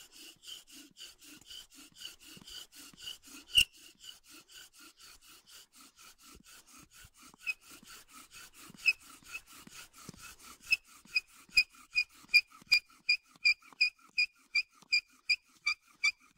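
Bow drill at work: the wooden spindle turns back and forth in a fireboard notch under a corded bow, a rhythmic rubbing with a squeak on every stroke. About two-thirds of the way through, the squeaks grow louder and regular, close to three a second. The squeaking comes from too little downward pressure on the spindle.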